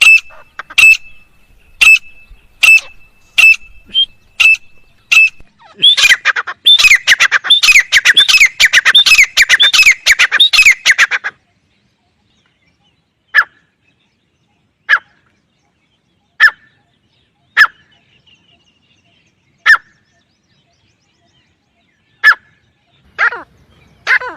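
Teetar (francolin) calling. Sharp notes come about once a second, then a dense burst of rapid chattering calls lasts about five seconds. After a short break come single calls every second or two, with a small flurry near the end.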